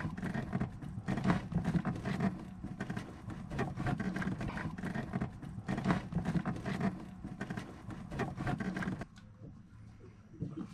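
Heavy battery cables scraping and rustling as they are pushed and pulled through a crowded wiring raceway, close to the microphone, with rough uneven strokes. The noise stops suddenly about nine seconds in, leaving only a few small clicks.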